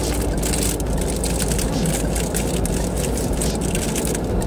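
Steady low rumble of a car idling, heard inside the cabin, with paper food wrappers crinkling in hand.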